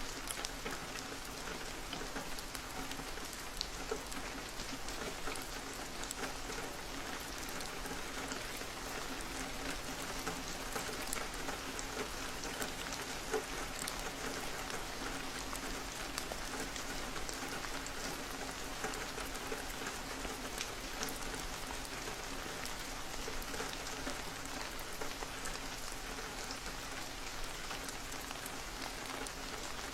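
Steady rain falling, with many separate drop ticks over an even hiss and a faint steady low hum underneath.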